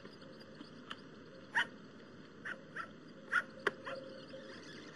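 Portable tape recorder being worked before playback: about four short squeaky chirps over faint hiss, then a sharp click of a control key about three-quarters of the way through.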